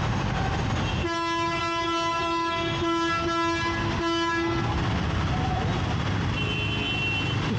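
A horn sounding one steady, unchanging note for about three and a half seconds, broken twice for a moment, over steady traffic and road noise.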